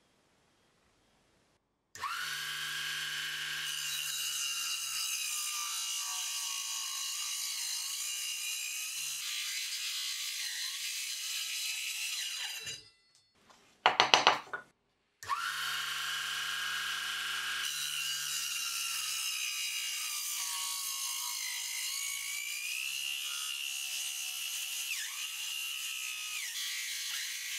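Electric motor of a homemade sliding cutting jig starting suddenly and spinning its blade at speed, its pitch wavering. It stops, a few loud sharp clicks follow, then it starts again and runs on.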